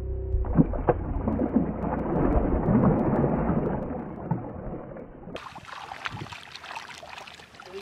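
Shallow water splashing and sloshing as a released bull redfish kicks away from the angler's hands, loudest in the first few seconds with a sharp splash about half a second in, then settling to a quieter wash of water.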